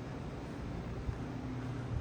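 Steady low hum and hiss of background noise, with a faint tap about a second in.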